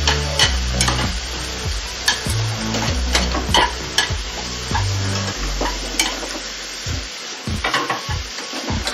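Beef and broccoli sizzling in a hot nonstick frying pan while being stirred and tossed with wooden chopsticks, which click against the pan now and then.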